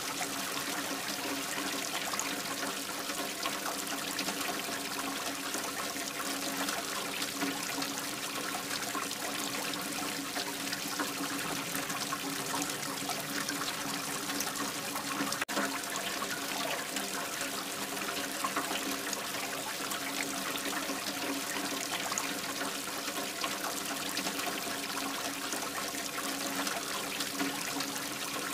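Whitewater river rapids rushing over rocks, a steady, unbroken rush of water.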